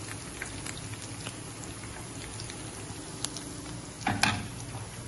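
Minced garlic and coriander sizzling in hot oil in a small frying pan, a steady hiss with small pops. A sharp clink about four seconds in as the pan is lifted by its handle off the gas burner grate.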